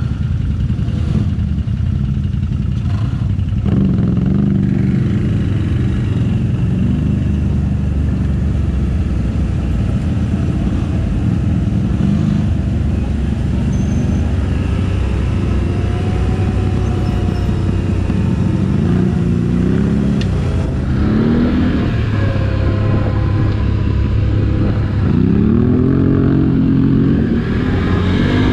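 All-terrain vehicle engine running under load off-road, a steady low rumble that rises and falls in pitch as the throttle is worked, with several revs in the last third.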